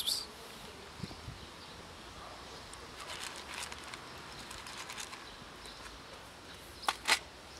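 Faint footsteps on asphalt over quiet outdoor background, with scattered light ticks and two short, sharp clicks near the end.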